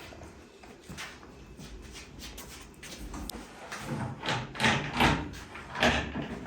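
A series of knocks and thuds from objects being handled and set against each other, the loudest several coming about four to six seconds in.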